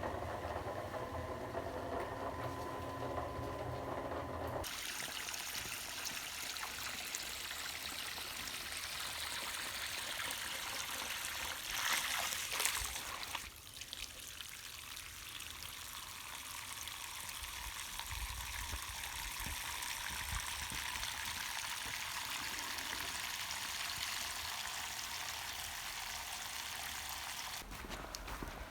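A drainage water pump humming for the first few seconds, then, after an abrupt change, the pumped floodwater pouring out in a steady stream, with a louder gush about twelve seconds in.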